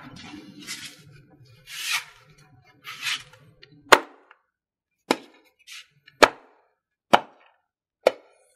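A knife chopping through a whole roast pig onto a wooden board: five sharp chops about a second apart in the second half. Before them come a few short rustling noises.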